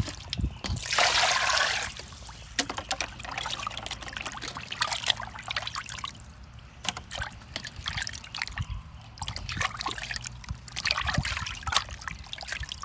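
Water splashing and trickling in a stainless steel bowl as hands rub and turn pieces of fish in it, with a louder rush of pouring water about a second in.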